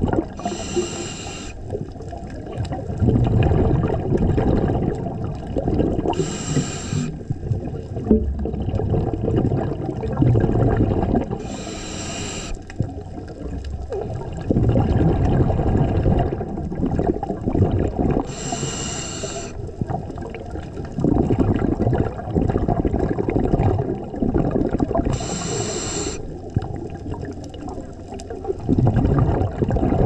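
Scuba diver breathing through a regulator underwater: five short hissing inhalations, about every six to seven seconds, each followed by several seconds of bubbling exhalation.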